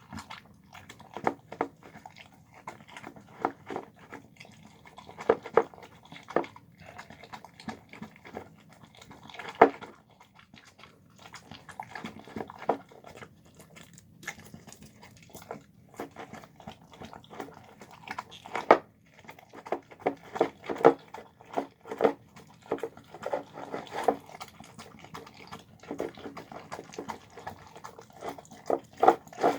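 A dog eating, chewing its food with irregular wet smacks and crunching bites, several a second with brief pauses between.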